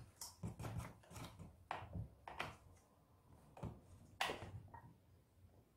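Light, irregular clicks and knocks from a Husqvarna 439 chainsaw being tightened by hand: the flat end of a plug wrench turning the chain tensioning screw, with the saw and chain shifting on the bar. There is one louder knock a little past the middle.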